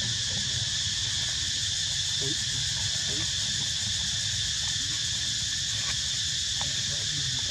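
Steady high-pitched drone of insects in the background, with a low hum underneath and a few faint short sounds here and there.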